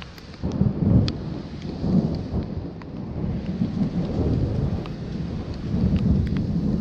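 Thunder rumbling: it sets in about half a second in, is loudest near one second, and rolls on in waves, with rain falling.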